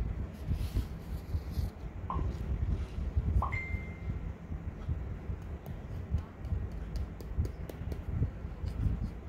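A paper craft with a clear plastic lid being handled and pressed with the fingers. There are light clicks and taps, most of them in the second half, and two or three short squeaks a couple of seconds in, over a steady low rumble.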